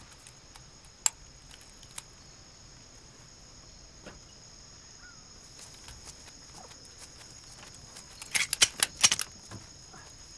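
Steady high insect buzzing, with one sharp click about a second in and a quick cluster of clicks and rustles of movement about eight to nine seconds in.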